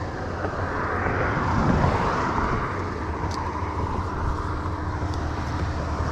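Road traffic passing on the bridge: a steady rush of car tyres and engines that swells about two seconds in.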